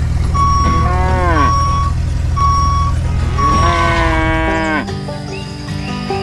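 A vehicle's reversing alarm beeps about once a second over a low engine rumble, and a cow moos twice. The beeping and rumble stop about three-quarters of the way in and music with held notes takes over.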